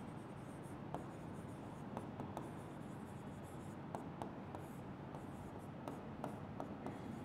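Stylus writing on an interactive smart-board screen: faint scratching of the tip across the screen, with a scatter of light taps as strokes begin.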